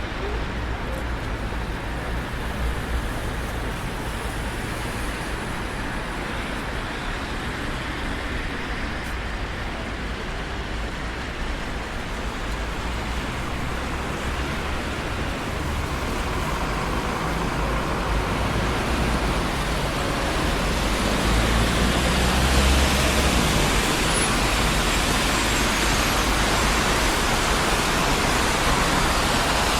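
Busy city street traffic: a steady rush of tyres and engines from passing cars, with a low rumble underneath. It grows louder and hissier from about halfway through as traffic passes closer.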